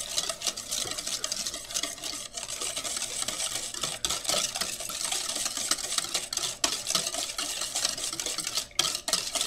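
Wire balloon whisk beating instant pudding mixture in a stainless steel bowl, its wires scraping and clicking against the metal in quick continuous strokes, with a few brief pauses.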